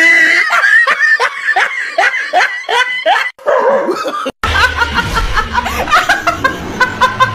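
Hearty laughter in quick repeated bursts, broken by two short cuts. In the second half a woman laughs in high-pitched bursts.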